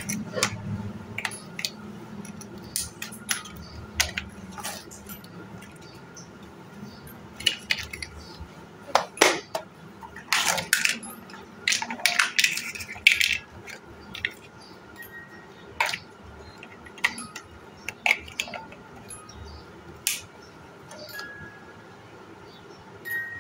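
Large plastic building blocks clacking and clicking as they are handled, set down and pressed together, in irregular sharp knocks that are busiest about halfway through.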